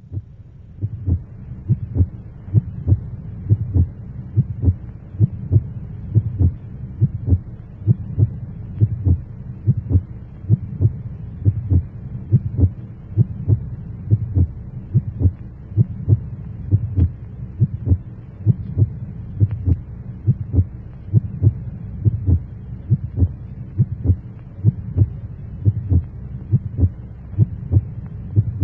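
A steady, even beat of low thumps, about two a second, over a continuous low hum, in the manner of a heartbeat sound effect on a soundtrack. It starts and stops abruptly.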